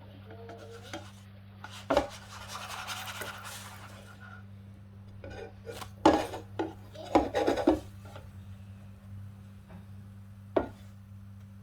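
Cooking utensils knocking and scraping against a frying pan and dishes. There is a sharp knock about two seconds in, followed by a couple of seconds of scraping, then a cluster of clatters around six to eight seconds and a single knock near the end. A steady low hum runs underneath.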